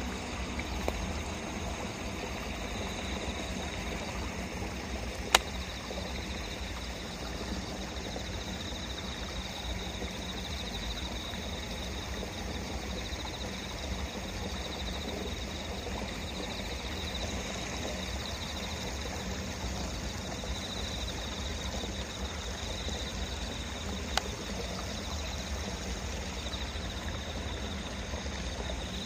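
Steady open-air ambience: a high-pitched chorus of calling animals held throughout over a low wind rumble, with two sharp clicks, a loud one about five seconds in and a fainter one near the end.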